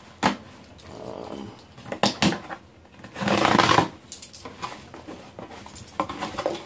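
Packing tape on a cardboard shipping box being cut with a key and the box flaps torn open: a sharp click near the start, a few knocks and scrapes, and a loud rasp of tape tearing from cardboard about three seconds in, followed by lighter rustles and taps of cardboard.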